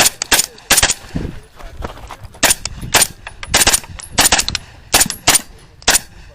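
Pistol-caliber carbine, a 10.5-inch short-barrelled rifle, firing about a dozen rapid shots, several in quick pairs, with a pause of over a second near the start.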